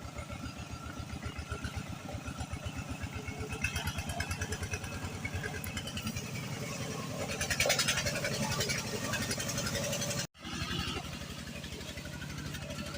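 Small motorcycle engine running with a steady, fast low putter, getting louder for a moment in the middle; the sound cuts out for an instant about ten seconds in, then carries on.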